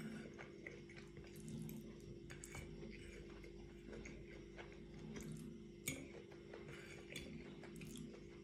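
Quiet eating sounds: chewing and mouth noises with small clicks of a metal fork on a ceramic plate as leftover spaghetti is gathered, one sharper clink about six seconds in, over a faint steady hum.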